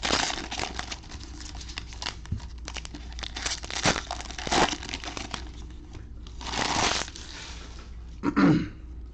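Foil trading-card pack wrapping crinkling and tearing as a hobby box is opened: a run of short crackles, with a longer rustle about two thirds of the way in.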